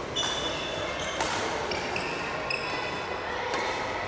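Sports-hall ambience with short high squeaks of shoes on the court floor and a couple of sharp knocks, echoing in a large hall.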